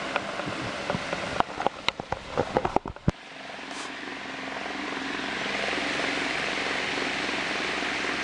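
Sandbag-loaded dining chair being shaken, its legs knocking and clacking on the brick paving in a quick irregular series of knocks a second or two in. A steady rushing noise then builds and holds.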